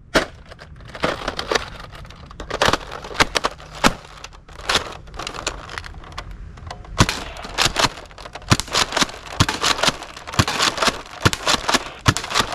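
Irregular sharp plastic clicks and knocks, with several louder clacks in the second half: toy blasters being handled and moved about.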